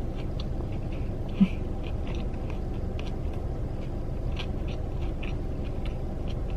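Chewing and biting into a crispy fried chicken sandwich: short, irregular crunches and mouth clicks over a steady low rumble, with one brief low hum about a second and a half in.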